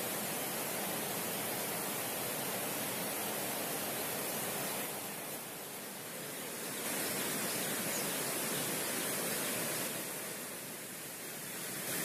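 Steady rush of river water flowing over rocks, easing slightly twice: about five seconds in and again near the end.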